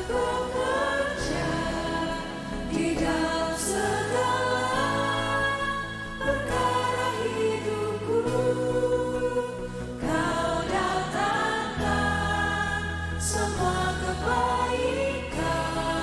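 A choir sings a Christian worship song over instrumental accompaniment, with held bass notes that change every few seconds.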